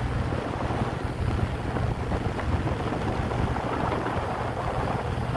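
Motorboat under way: its engine runs with a steady low rumble while wind buffets the microphone.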